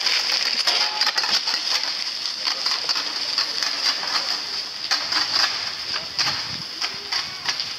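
Irregular light metallic clinks and taps from sailing dinghy rigging, over a steady high-pitched buzz.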